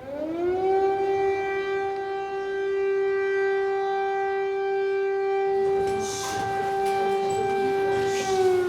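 Air raid siren sounding an alert: it rises in pitch within the first second, holds one steady tone, and begins to fall near the end. It warns of a possible missile or rocket attack, the signal to take shelter.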